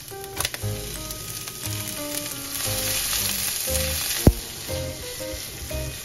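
Sliced onion, green onion and minced garlic sizzling in oil in a nonstick wok, stirred with a spatula over low heat, with one sharp knock a little past four seconds in. Background music plays over it.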